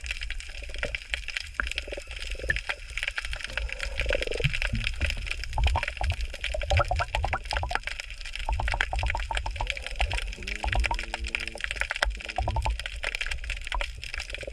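Underwater ambience over a shallow rocky seabed: a dense, steady crackle of tiny clicks with a low rumble of moving water. About ten seconds in, a short low humming tone comes and goes a few times.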